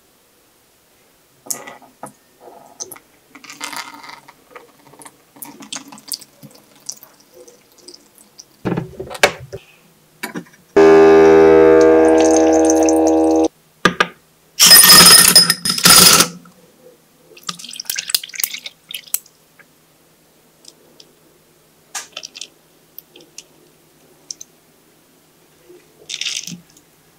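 Wet squelches and drips as a thawed frozen pear is squeezed, then an electric appliance hums steadily for about three seconds. Then comes a loud bright clatter of ice cubes dropped into a glass, followed by smaller clinks and handling noises.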